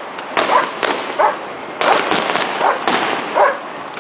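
Fireworks going off in a run of sharp bangs and crackling, with a dog barking several times between them.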